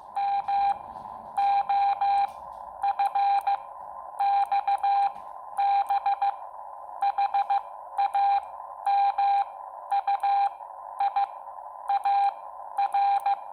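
Morse code sidetone from a Xiegu X6100 transceiver in CW training mode, hand-keyed on an iambic paddle. A single steady beep is broken into dots and dashes in about a dozen letter groups, over a constant receiver hiss.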